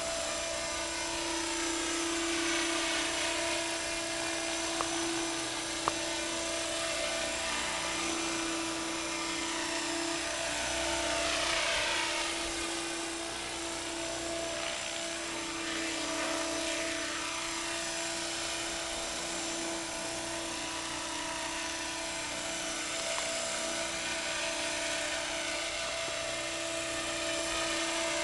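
Thunder Tiger Innovator MD 530 radio-controlled helicopter in flight: a steady whine of electric motor and rotors, its pitch sweeping up and down a few times as the model moves about, most clearly around the middle.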